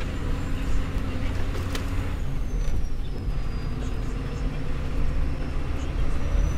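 Converted expedition truck driving slowly along a rutted dirt track, heard from inside the cab: a steady, loud engine and road rumble with a few scattered knocks from the truck body.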